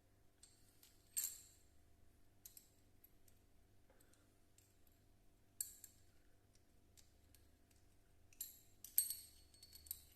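Faint, scattered sharp clicks and clinks, about six in all, with a cluster of louder ones near the end.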